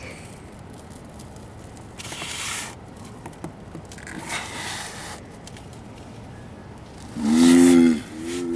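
Male Galapagos tortoise's mating groans: a loud, deep, drawn-out groan about seven seconds in, followed at once by a shorter, quieter one. Earlier come two softer hissing sounds.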